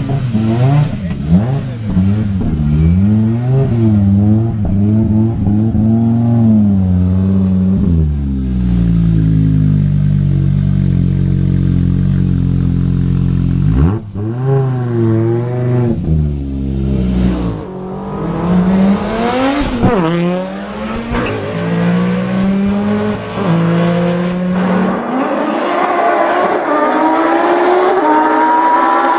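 Audi Sport Quattro S1 E2's turbocharged 2.1-litre inline-five, revved repeatedly while standing, rising and falling in pitch, with a held steady pitch for several seconds in the middle. Near the end, an S1-style rally car accelerates hard, its pitch climbing through the gears.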